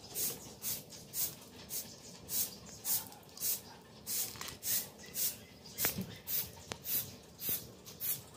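Twig broom sweeping a gravel-strewn dirt road: a steady run of short, hissy swishes, about two strokes a second.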